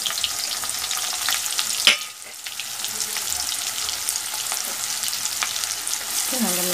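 Chopped onions sizzling and crackling in hot coconut oil in a kadai, with a sharp knock about two seconds in, after which the sizzle briefly drops. A wooden spatula stirs them near the end.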